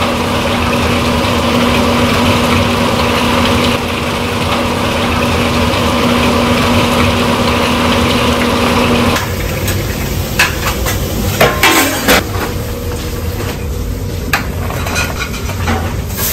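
Water pouring steadily from a brass tap into a large stockpot of broth: a continuous splashing rush with a steady low hum. About nine seconds in it stops, and a few metal clinks and knocks of kitchen pots and utensils follow.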